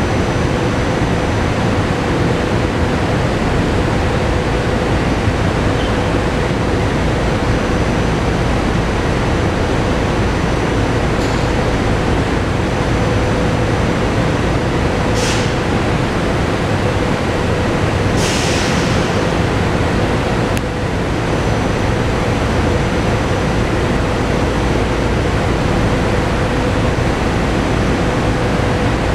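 SEPTA Regional Rail electric train standing at an underground platform, running with a steady hum that holds one constant tone. Two short hisses of air come a few seconds apart a little past the middle.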